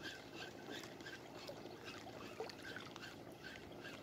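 Small waves lapping and trickling against a rocky shoreline, with a faint, regular run of short high chirps, about three or four a second, and an occasional light click.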